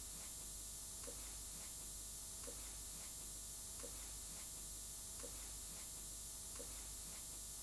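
Quiet background hiss with faint, evenly spaced soft ticks, about one every second and a half.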